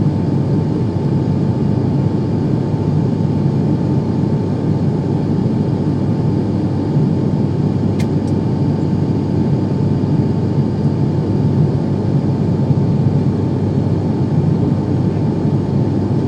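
Turboprop airliner's engine and propeller heard from inside the cabin during the climb after take-off: a steady, unbroken drone with a constant hum tone riding on it. A single brief click about halfway through.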